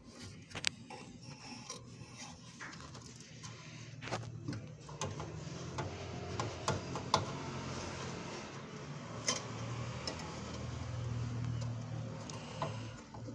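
Hands handling wiring and parts inside a cup sealer's metal frame: rubbing and scraping with scattered light clicks and knocks, over a low steady hum.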